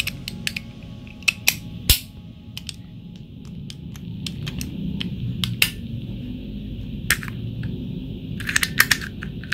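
Sharp metal clicks and taps as the aluminium-alloy handle and blade parts of a Deli DL4260 utility knife are fitted back together, with a low rustle of handling between them. The clicks are scattered at first and come in a quick cluster near the end as the parts seat.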